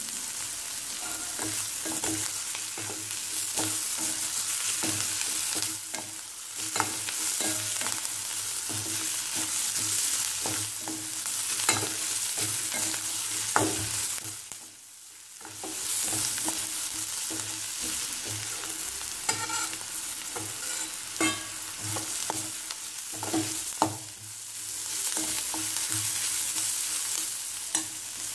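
Chopped onion and capsicum sizzling in oil as they are sautéed in a stainless steel kadai, with a slotted steel spoon scraping and clinking against the pan as it stirs. The sizzle drops away briefly about halfway through.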